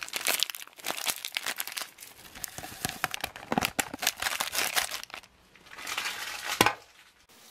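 Packaging crinkling and rustling as an all-in-one instant coffee sachet is handled and torn open: a dense run of crackles, a short pause, then another burst ending in a sharp click.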